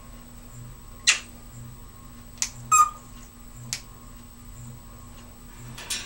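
Timneh African grey parrot moving about on top of its wire cage, making a handful of sharp clicks and taps on the bars about a second apart, one of them a short rattling click about halfway through.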